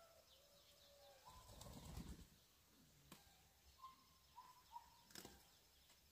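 Quiet outdoor rural ambience with faint bird chirps and short whistled calls, a brief low rumble about two seconds in, and two sharp clicks later on.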